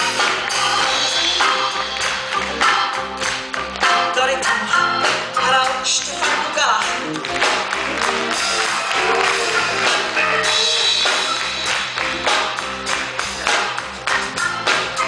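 Live band playing: drum kit, electric guitars and keyboard, with a singer's voice over the music.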